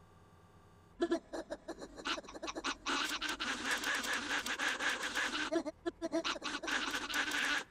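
Cartoon minion's frantic licking and slurping noises: a rapid run of wet smacks that starts about a second in and thickens into a dense stretch in the middle.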